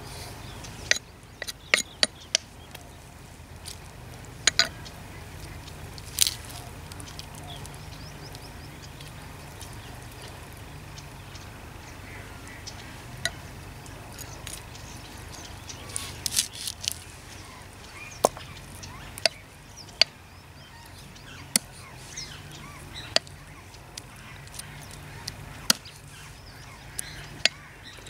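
A large kitchen knife chopping small pieces of partridge on a wooden tree-stump block: sharp knocks of the blade into the wood at irregular intervals, with a pause of several seconds near the middle.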